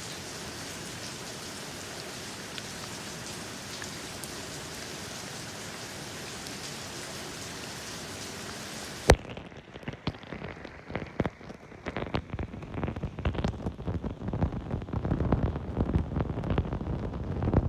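Steady rain falling, an even hiss, for about nine seconds. Then a sharp click, and the sound changes to irregular low thumps and a rumble that grows louder toward the end.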